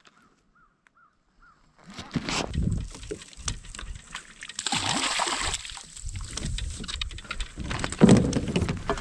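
Water splashing and sloshing at a kayak's side, with knocks and rustling of handling as a small fish is reeled in and lifted aboard; the loudest splash comes about eight seconds in. Faint short repeated calls are heard during the quiet first two seconds.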